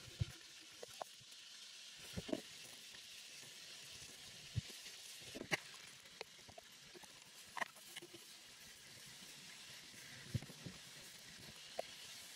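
Food preparation by hand: a few scattered soft knocks and taps as onion, garlic and seasonings are handled and added to a wooden bowl, over a faint steady high hiss.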